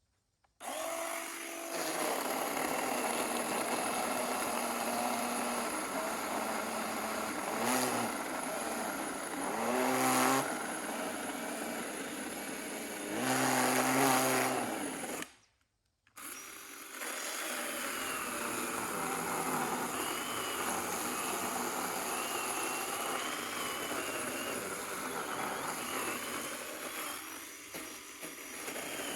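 SORAKO 20-volt 10-inch cordless chainsaw's electric motor whining as the chain cuts through a pine trunk, swelling louder twice. It breaks off for about a second midway, then runs and cuts on.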